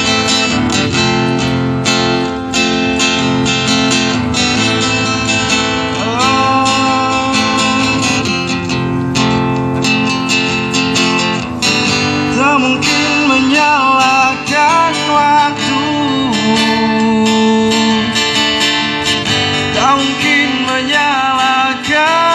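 Acoustic guitar strummed in a live street performance, with a man singing into a microphone, the voice coming in more clearly from about halfway through.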